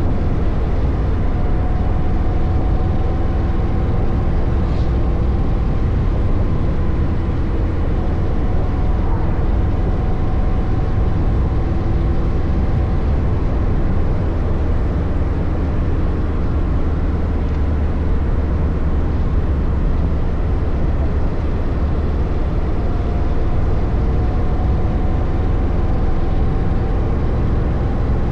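Kawasaki Voyager 1700's V-twin engine running steadily while riding, under a constant rush of wind noise, its pitch drifting only slightly.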